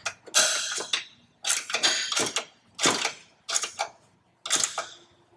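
A 9/16-inch wrench tightening a 3/8-inch stainless steel bolt and nut on a steel bumper mount, making about six short bursts of metallic clicking with brief pauses between strokes.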